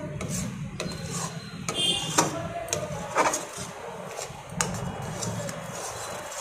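Metal spatula scraping and knocking against a metal kadhai while stirring thick melted jaggery with ghee, with several sharp clinks, a couple of them ringing briefly.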